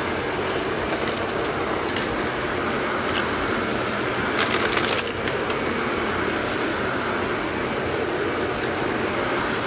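Dyson upright vacuum cleaner running steadily over carpet, making extra passes to pick up dirt left by the first pass. A brief patch of sharp rattling clicks comes about four to five seconds in.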